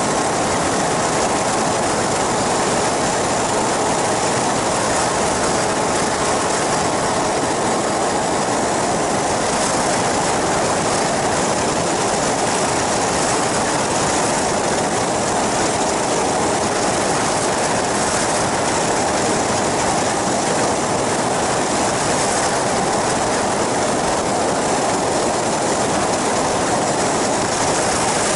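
Flying boat with a caged pusher propeller in steady flight: its engine and propeller running at a constant pitch, with airflow noise rushing over the microphone.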